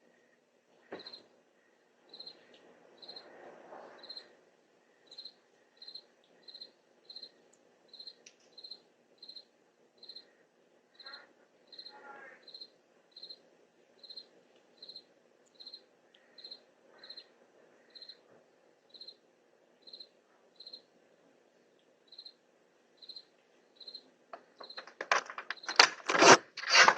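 Crickets chirping steadily at night, short high chirps repeating about twice a second over a faint background hum. Near the end, much louder repeated sharp sounds cut in.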